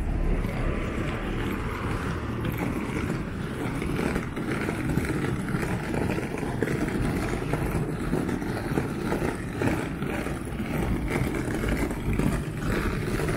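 Hard-shell rolling suitcase's small wheels rumbling continuously over rough asphalt.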